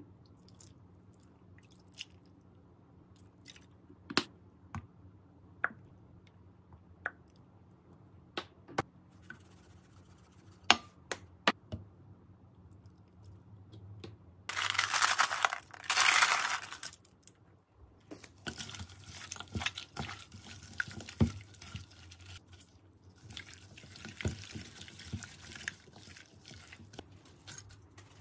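Kitchen and eating sounds in a small room: scattered light clicks and taps, a loud hissing rush of about two seconds midway, then a softer hiss with more clicks, with some crunching and chewing.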